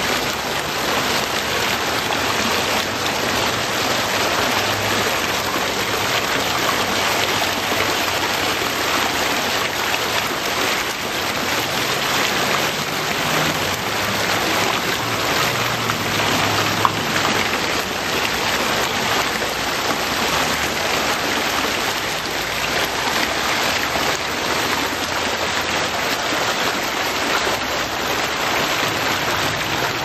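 Water from a steel sculpture fountain spilling off leaf-shaped metal plates and splashing, a steady patter. One brief click a little past halfway.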